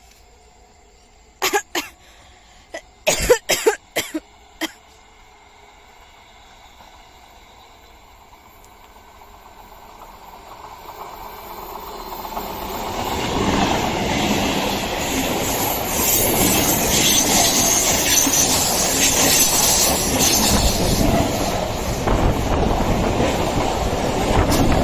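An express train hauled by an Indian Railways WAP-4 electric locomotive approaching and passing: a rumble and rattle of wheels on track that builds from about eight seconds in and stays loud. A handful of short sharp sounds come in quick succession within the first five seconds, before the train arrives.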